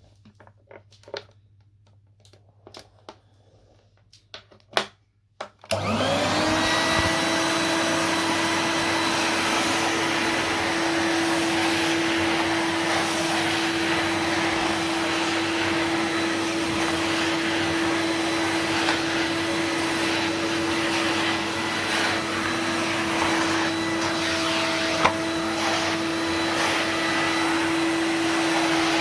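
A few clicks and knocks, then a Numatic NVR375 vacuum cleaner is switched on about six seconds in. Its motor spins up quickly and runs steadily with a constant whine over the rush of air.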